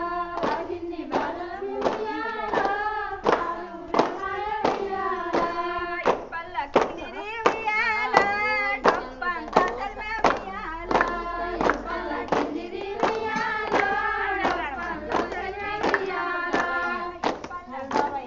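A group of women singing a Bathukamma folk song together, clapping their hands in time, about two claps a second.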